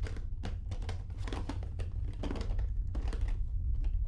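Crinkling and rustling of packaging being handled and unwrapped by hand: a run of irregular crackles, over a steady low hum.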